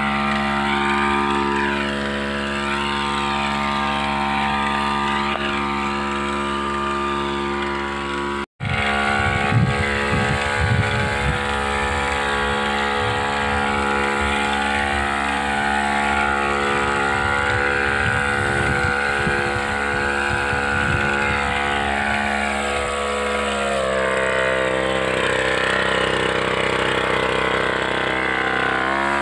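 Small engine of a backpack power sprayer running steadily under spraying. It drops out for an instant about eight seconds in, and its note shifts about two-thirds of the way through.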